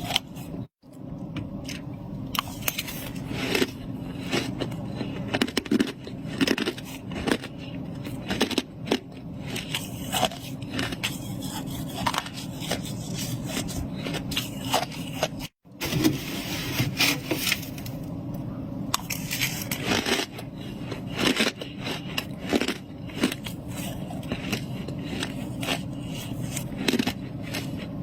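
Freezer frost being scraped and crunched close to the microphone: a dense run of irregular squeaky, powdery crunches and scrapes. The sound breaks off for an instant twice.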